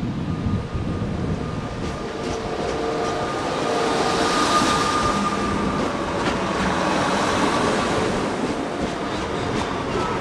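A Class 175 diesel multiple unit running past close by along the platform, with a steady whine over the train's running noise.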